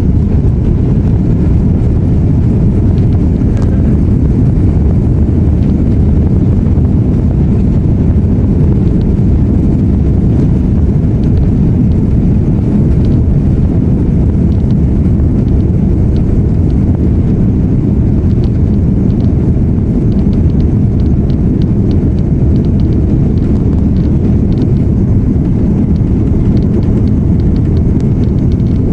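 Airbus A330-300 cabin during take-off: the jet engines at take-off power make a loud, steady low rumble, with faint ticks and rattles of the cabin on top.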